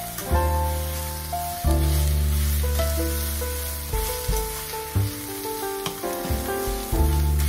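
Background music with a bass line and notes that strike and fade, over the sizzle of fried rice being stirred with a spatula in a hot stainless-steel pan.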